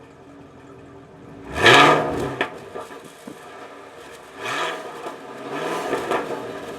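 2016 Chevrolet Camaro SS's 6.2-litre V8 idling and revved in three short throttle blips, the engine note rising and falling each time. The first blip, about a second and a half in, is the loudest; the other two come near the middle and toward the end.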